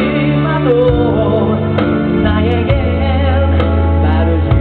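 A live band playing a song, with a singer singing into a microphone over steady bass notes and a beat that lands about once a second.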